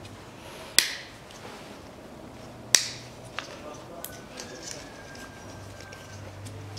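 Sharp plastic clicks from handling a tube of two-part epoxy putty and pulling its plug. There are two loud clicks, about a second in and near the middle, followed by a few fainter ticks.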